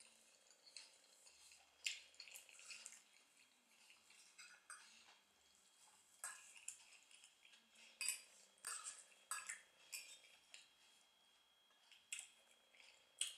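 Faint sounds of a metal fork picking at food on a plate, with several sharp clinks of the fork against the plate spaced a second or more apart.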